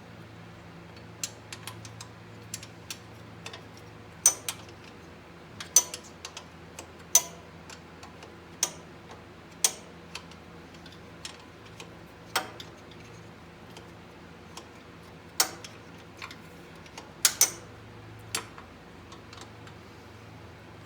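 Sharp metal clicks and clinks of a combination wrench being worked on a bolt and repositioned, irregular, about one a second with a few louder strikes. A steady low hum runs underneath.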